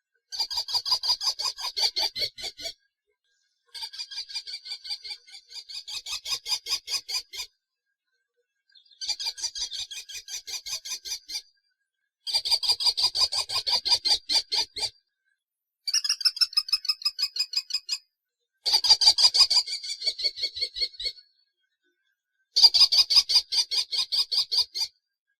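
Kestrel calling: a fast run of high-pitched repeated notes, about eight a second, given in bouts of two to three seconds with short silent gaps, seven bouts in all.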